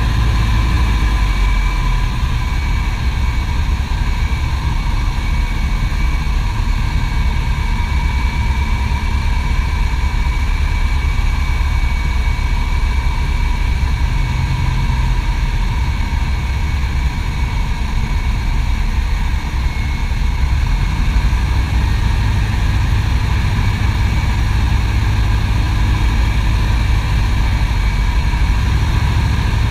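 Piper PA-18 Super Cub seaplane's piston engine and propeller running steadily, heard from inside the cockpit as a loud, unbroken drone, while the plane descends on approach to land on the water.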